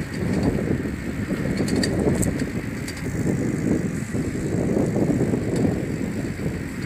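Low, fluctuating outdoor rumble, with a few faint clicks about two seconds in.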